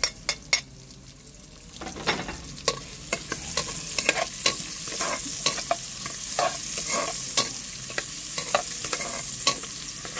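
Sliced onions and garlic sizzling in hot oil in a large pot while a metal spatula scrapes and taps against the pot, stirring them. A few sharp taps at the start as the onions are knocked off a plate with the spatula, and the sizzle grows louder about two seconds in.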